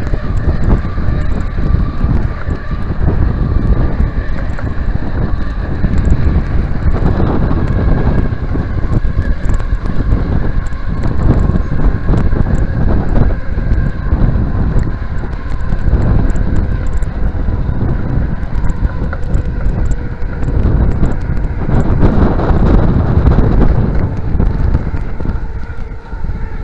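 Wind buffeting the microphone of a handlebar-mounted action camera on a moving bicycle, a loud, gusting rumble with the bike rolling over pavement beneath it.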